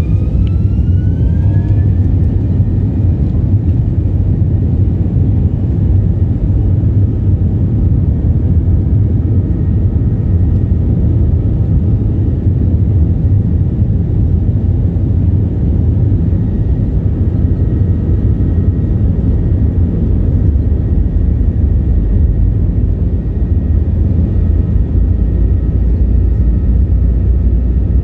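Airbus A321 jet engines heard from inside the cabin during the takeoff run: a whine rising in pitch over the first two seconds as the engines spool up, then a loud, steady low rumble.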